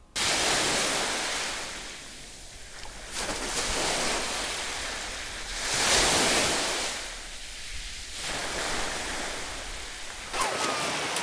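Surf washing onto a beach, the noise swelling and easing every few seconds. Near the end, splashing is heard as someone runs out through the shallow water.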